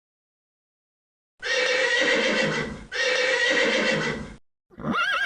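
Horse neighing: two long whinnies back to back after a short silence, then a third, higher whinny with a quavering pitch starting near the end.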